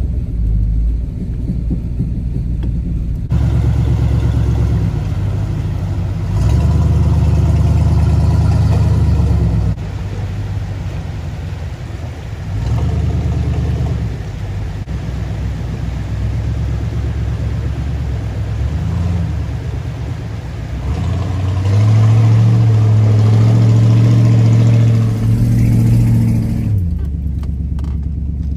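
Pickup truck engine working under load off-road, its revs rising and falling in steps. The loudest, highest-revving push comes about three-quarters of the way through, then eases off.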